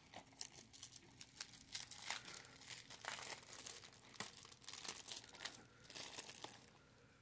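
Plastic shrink-wrap on a DVD case crinkling and tearing as it is peeled off by hand, in faint irregular crackles that die away near the end.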